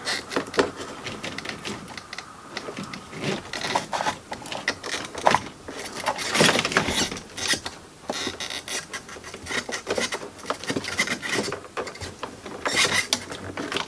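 Irregular rustling, scraping and clicking of wires and coax cable being handled and moved.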